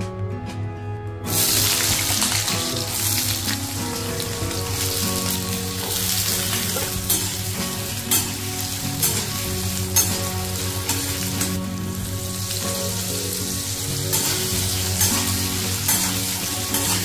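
Potato pieces frying in hot mustard oil in a kadai: a steady sizzle that starts about a second in, with occasional sharp clacks of a metal spatula stirring against the pan.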